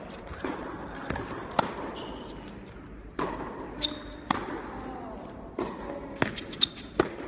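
Tennis balls being struck by racquets and bouncing on an indoor hard court: a string of sharp pops and thuds with echo from the hall, the loudest three coming close together near the end.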